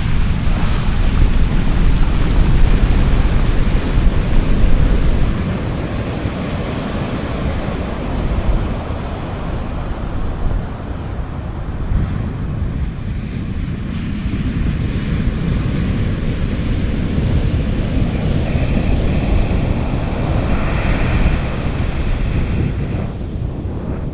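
Sea waves washing onto a beach, with wind rumbling on the microphone, heaviest in the first five seconds before settling to a steadier wash.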